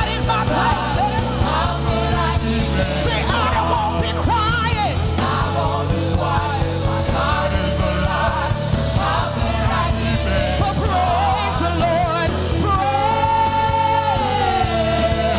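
Live gospel praise-and-worship music: a singer over a full band with drums and bass, with a long held, wavering note near the end.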